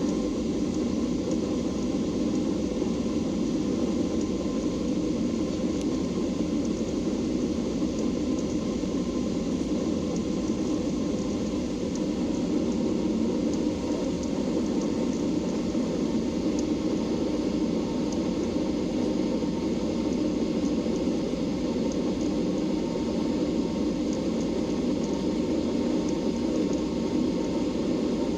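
Steady rush of cabin noise inside a Boeing 737-800, from its CFM56-7B jet engines and the airflow, with a faint steady whine.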